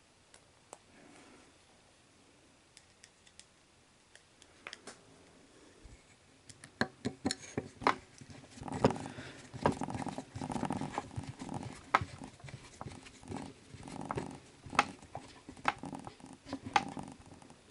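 Small screwdriver driving screws into a Betamax video head drum assembly: a few scattered light clicks at first, then, from about seven seconds in, a busy run of sharp metal clicks and scraping as the screw is turned and the drum is handled.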